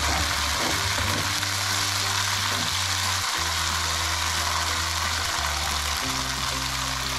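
Sambal of ground chilli paste sizzling steadily as it fries in oil in a hot wok, over background ukulele music.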